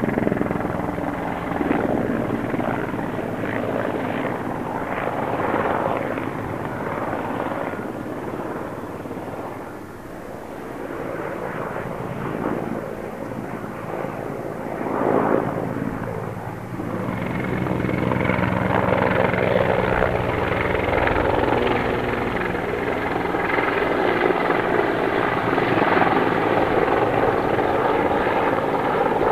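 Mi-24P attack helicopter flying past: the steady sound of its main rotor and twin turboshaft engines. It eases off about a third of the way in and grows louder again through the second half as it passes close overhead.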